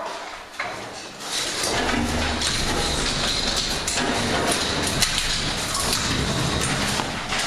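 Metal feed bowls and dry dog food clattering and rattling at feeding time: a dense, continuous rattle of small clicks that starts about a second in.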